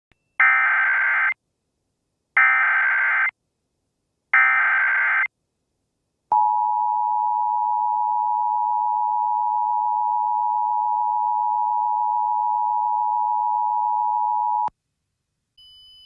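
Emergency Alert System header: three short bursts of harsh digital SAME data tones, about two seconds apart. They are followed by the steady EAS attention tone, which holds for about eight seconds and cuts off sharply.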